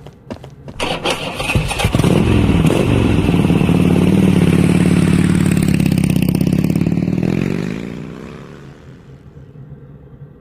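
A few clicks, then a motor vehicle engine starts and runs loudly. Its pitch falls and it fades away as it drives off.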